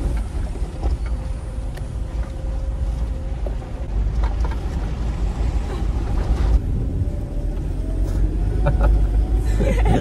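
Low, steady rumble of a vehicle driving slowly over a rough, bumpy mountain road, heard from inside the cabin, with scattered knocks and rattles from the bumps.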